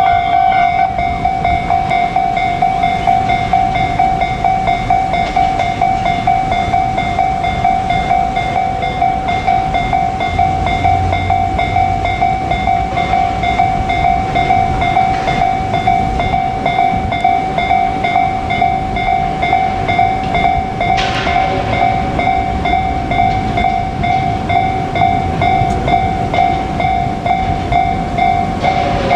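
Japanese railway level-crossing alarm ringing continuously, one steady electronic dinging tone repeating rapidly. Under it a JR Kyushu 817 series electric train runs past with rail clatter and rumble.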